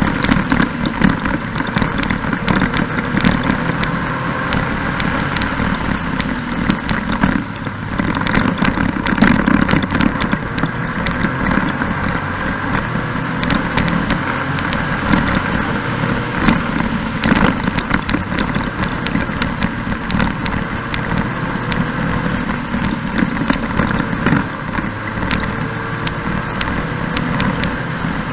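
Can-Am Spyder F3-S three-wheeler's Rotax three-cylinder engine running under way at road speed, its note rising and falling with the throttle, with wind rushing and crackling over the onboard camera's microphone.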